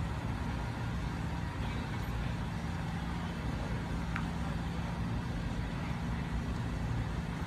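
Jeep Wrangler engine idling steadily with a low, even hum.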